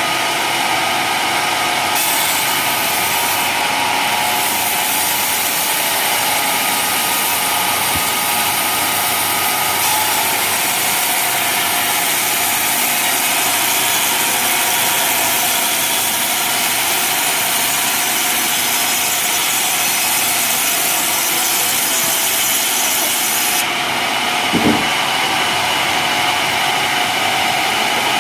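Homemade sawmill's blade cutting lengthwise through an old coconut-palm trunk over its running motor. The cutting starts about two seconds in and stops a few seconds before the end, leaving the machine running, and a brief knock follows.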